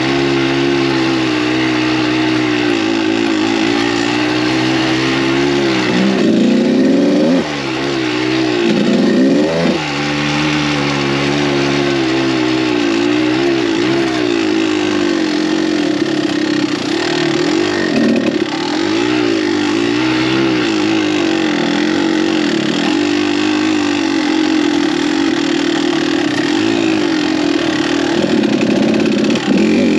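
Kawasaki KDX200 two-stroke single-cylinder dirt bike engine under way, its revs rising and falling as the throttle is worked, with sharp rev rises about six and nine seconds in.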